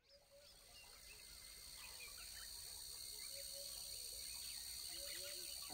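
Faint outdoor nature ambience fading in gradually: many short bird chirps and calls over a steady, high insect drone like crickets.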